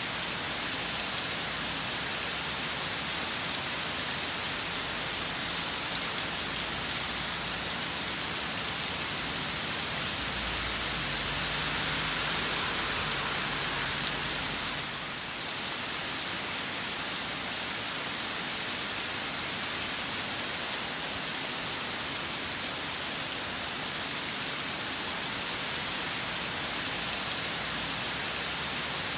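Steady rain falling in a storm, an even hiss of drops. About ten seconds in, a low rumble swells for a few seconds and then fades.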